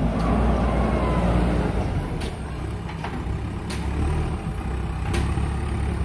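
JCB backhoe loader's diesel engine running with a heavy low rumble as the machine works, with a faint rising whine in the first second or so and a few sharp clicks about every second and a half.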